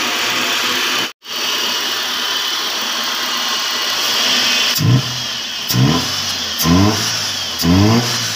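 Suzuki Liana's four-cylinder engine running at idle, then blipped with short rises in revs about once a second from about five seconds in. The engine has overheated with a blown head gasket, and coolant is being pushed out of the radiator neck.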